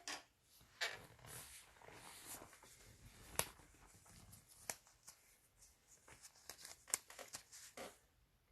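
Faint rustling and handling noises with scattered sharp clicks and taps, the loudest about three and a half seconds in and again about seven seconds in, dying away near the end.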